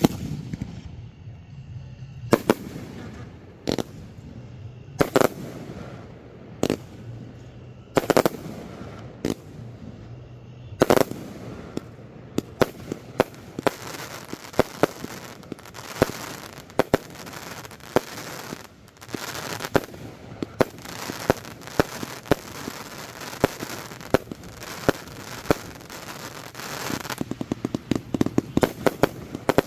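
Fireworks display with aerial shells bursting one after another, a sharp bang about every second and a half. From about twelve seconds in, the bangs come thick and fast over a continuous crackle. Near the end a rapid string of reports rattles off.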